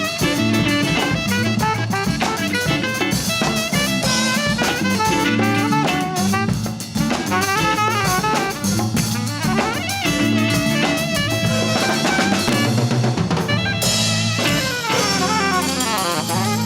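Latin fusion band playing live, with a drum kit driving a steady beat under melodic lead lines.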